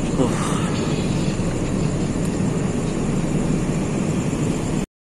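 Steady low rumble of a passenger train standing at a platform with its diesel engines running. It cuts off abruptly near the end.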